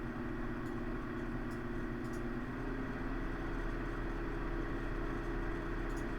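Fans of an Asus HD 7950 DirectCU II TOP V2 graphics card running at a high fan rate, heard through the closed PC case: a steady rush of air with a droning tone, which steps slightly higher in pitch about two and a half seconds in as the fan speed is raised. This tonal drone at certain fan speeds is what makes the card noisy.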